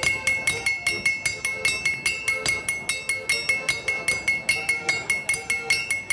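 Hand hammers striking a steel anvil in a fast, even rhythm, about four blows a second. Each blow leaves a bright metallic ring.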